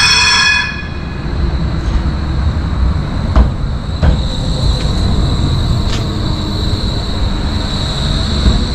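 A rail vehicle rolling past close by: a steady rumble with a few knocks, and a high steady wheel whine in the second half. A short ring sounds at the very start.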